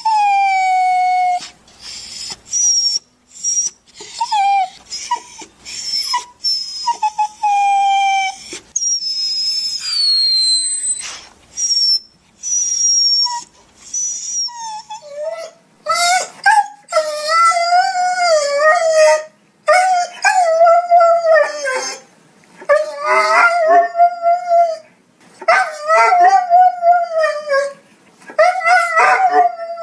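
A dog whining and crying. First come short high whimpers that slide down in pitch; from about halfway it gives longer, wavering crying calls, one after another with short gaps.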